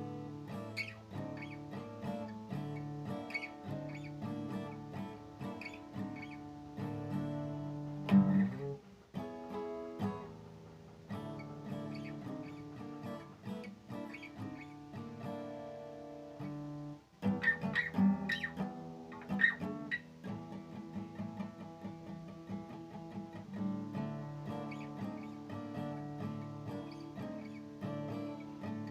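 Acoustic guitar playing a rock song's intro, strumming chords mixed with picked notes, with harder strummed accents about eight seconds in and again around eighteen to twenty seconds.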